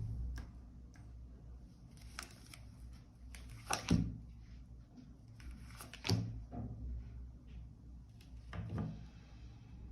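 Quiet handling noises: four soft knocks about two seconds apart, with faint rustling, over low room tone.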